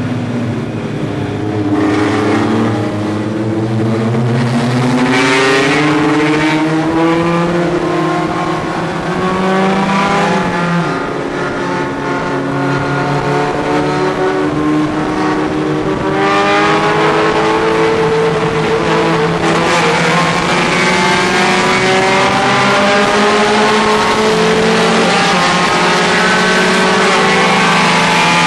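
Race car engine heard from inside the cabin, running hard at racing speed, its pitch climbing in long slow rises with a brief dip about two-thirds through.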